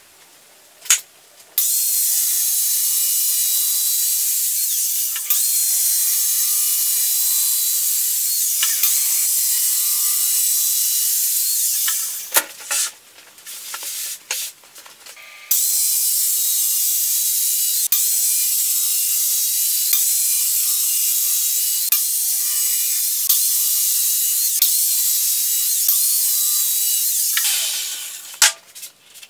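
Power saw cutting through a sheet of expanded PVC laid over foam board: a steady cut of about ten seconds, a pause with a few knocks of handling, then a second cut of similar length.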